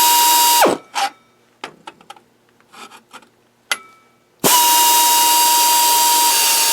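Drill running at about 550 rpm to bore a pilot hole in metal: a short burst that winds down less than a second in, a few light knocks, then a longer steady whine with hiss from about four and a half seconds in that winds down at the end.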